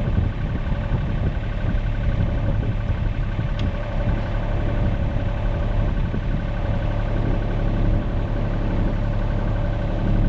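Mini excavator's engine idling steadily.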